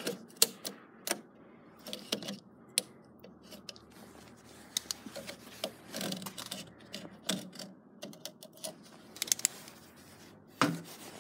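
Irregular clicks and taps from handling a plastic jug of windshield washer fluid while it is being opened, with one louder knock near the end.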